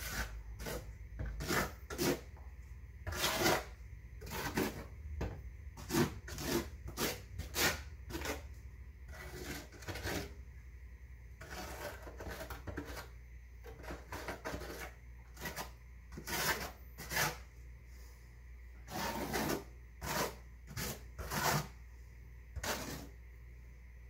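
Steel 1/4 by 1/4 inch notched trowel scraping thinset mortar across a plywood subfloor, in repeated short strokes of about one a second.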